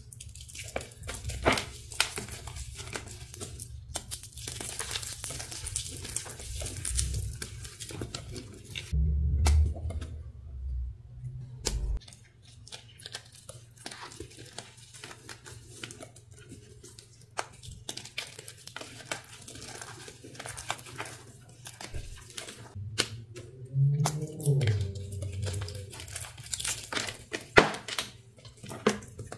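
Reformed, dyed gym chalk being crumbled and crushed by hand into powder and grit: a run of dry crunches and crackles, with a few dull thumps.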